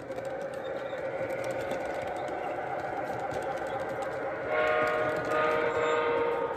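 Model train cars rolling past on the track with a steady hum, then, near the end, the electronic diesel horn of the MTH Conrail locomotive's Proto-Sounds sound system sounds in a long blast of about two seconds.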